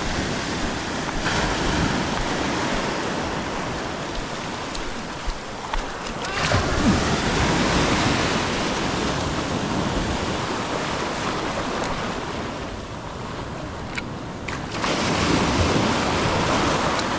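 Ocean surf breaking and washing up the sand at the shoreline, a steady rushing wash that swells louder about six seconds in and again near the end as waves run up.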